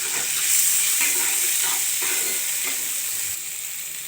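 Rice sizzling in hot oil and ghee in a pan as it is stirred, with a few short scraping strokes of the spoon: the rice being fried in the fat before the water goes in.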